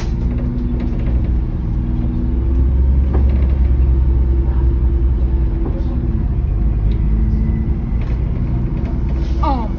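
Bus engine running while under way, heard from inside the bus: a low drone with a steady hum that grows louder about two and a half seconds in.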